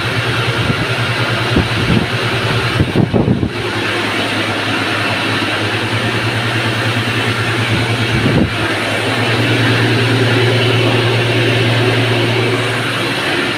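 Electric flour mill (atta chakki) running, a loud steady mechanical hum and grind, a little louder in the second half. Two short knocks, about three and eight seconds in.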